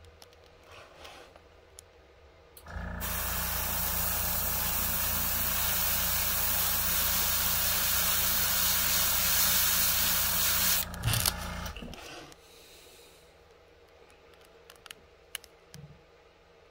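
Iwata Eclipse airbrush spraying paint: a loud, steady hiss of air lasting about eight seconds, over the hum of a small airbrush compressor that starts just before the spraying and stops about a second after it. A couple of sharp clicks come as the spraying ends.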